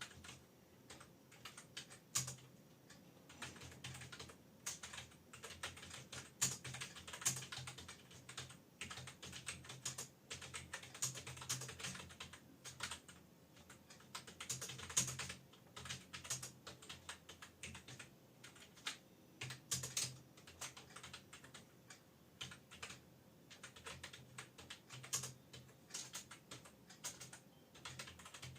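Continuous fast typing on an external wired computer keyboard: a dense run of key clicks with short pauses now and then.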